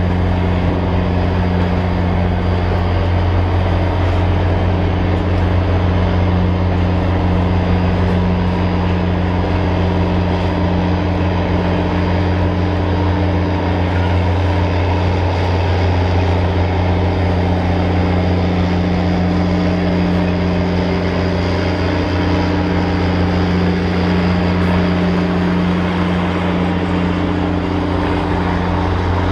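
Passenger train rolling past with a steady, low diesel drone from the diesel engines at its rear.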